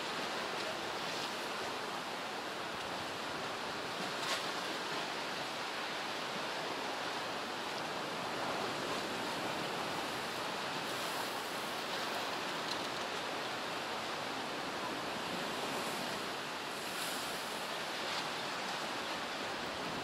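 Storm surf on the Mediterranean breaking against a harbour breakwater, mixed with strong wind: a steady rush of noise with no distinct single crashes.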